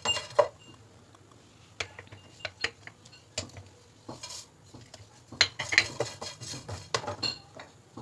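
Wooden spatula stirring dry pieces of cinnamon bark in a non-stick pan, with intermittent clicks and scrapes of bark and spatula on the pan; dried bay leaves are tipped in about halfway through and clatter in. The spices are being dry-roasted slowly on a low flame, with no oil, so there is hardly any sizzle.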